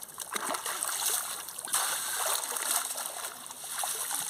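River water running and splashing close by, a steady rushing with small splashes swelling and easing.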